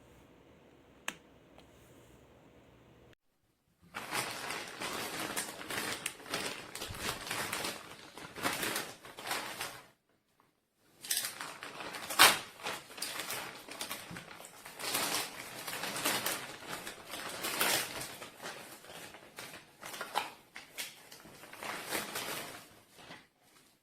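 Crinkling and rustling handling noise in two long stretches, the first lasting about six seconds and the second about twelve, with a short pause between them; a single sharp click about a second in.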